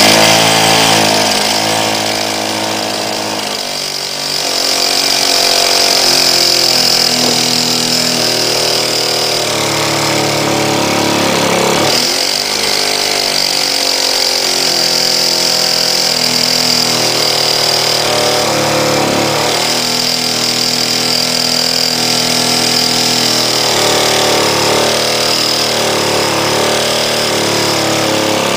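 Small engine running on 100% HHO gas (hydrogen-oxygen from electrolysis). Its speed wavers, sagging and picking up again several times.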